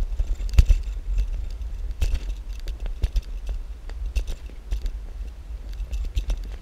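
Bicycle rattling and clattering as it rolls over a rough gravel and cracked-asphalt path: irregular clicks and knocks, the strongest about half a second in, over a steady low rumble of riding wind on the microphone.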